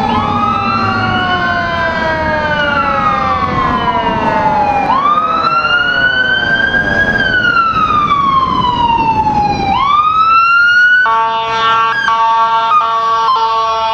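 Fire truck's Federal Q mechanical siren winding up quickly and coasting slowly down, three times, over the truck's engine. About eleven seconds in, its air horns take over with a steady chord.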